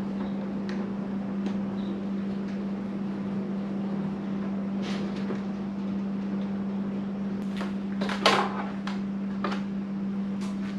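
Scattered light clicks and knocks of a plastic sportbike windscreen being handled and lifted free of the fairing. The loudest cluster comes about eight seconds in, over a steady low hum.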